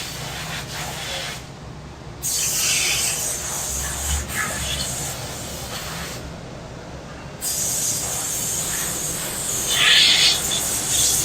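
Cicadas buzzing in a loud, high chorus that cuts out briefly and starts up again abruptly twice, about two seconds in and again past the middle.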